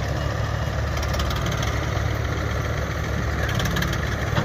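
Diesel engine of a Mahindra 265 DI tractor running steadily with a low rumble as it pulls a loaded sugarcane trolley through soft tilled soil.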